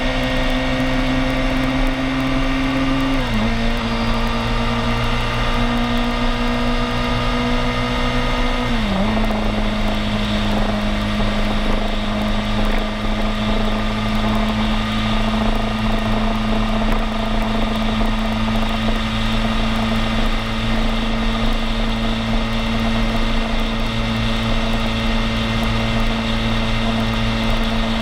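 Vehicle engine pulling under acceleration, its pitch climbing slowly and then dropping sharply twice, about three and nine seconds in, as it shifts up a gear; after that it holds a steady pitch at cruising speed. A steady rush of wind and road noise runs underneath.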